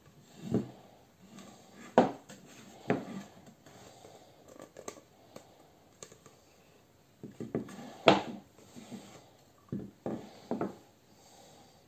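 A turned birch-burl wooden bowl handled on a ceramic-tile countertop: a series of separate wooden knocks and light scrapes as it is turned over and set down, the loudest about two seconds in and about eight seconds in.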